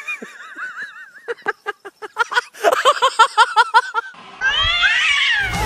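A cat yowling: a wavering, warbling call, then a quick run of short cries at about six a second, then one long sliding cry.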